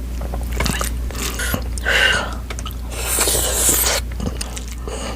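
Close-miked eating: wet chewing and biting of food, with scattered crackles and clicks. About three seconds in comes a loud airy hiss lasting about a second.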